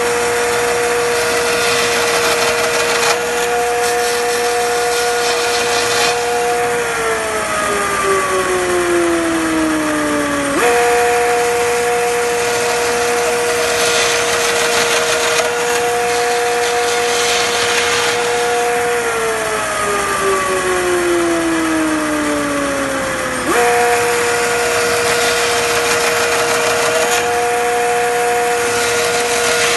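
Chain mortiser's electric motor running with a steady whine as it cuts mortises in wood. Twice the pitch sags over about four seconds as the chain bites into the wood under load, then jumps back up.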